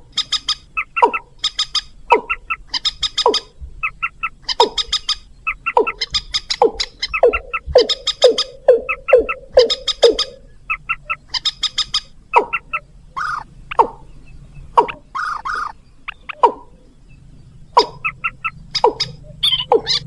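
Bird-lure recording of rail calls, watercock (ayam-ayaman) and mandar: short calls that slide downward, about two a second, mixed with quick runs of sharp high clicking notes, with a brief lull about three-quarters of the way through.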